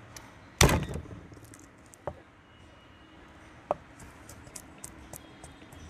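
Large kitchen knife striking a thick wooden chopping board: one loud thump about half a second in, two lighter knocks, then a quick run of light chopping taps, about four a second, as garlic is minced.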